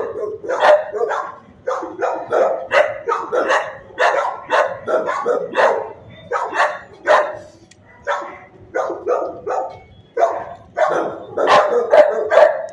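Dogs in shelter kennels barking, short barks following one another several times a second, with brief lulls a little past the middle.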